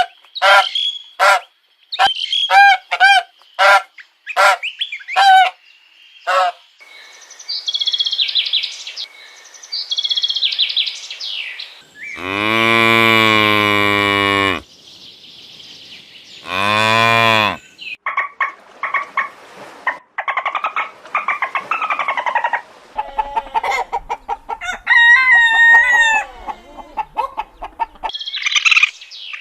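Farm animal calls one after another: a quick run of short calls, higher chirping calls, two long cow moos around the middle, then chickens clucking and calling.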